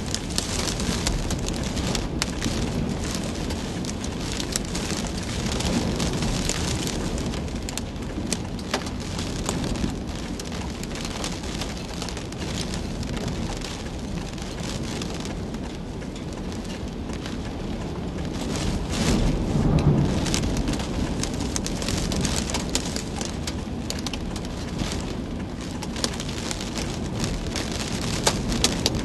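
Hurricane wind and wind-driven rain beating on a vehicle, heard from inside: a steady rushing hiss full of sharp ticks of drops striking the windshield, with a stronger gust buffeting the car about twenty seconds in.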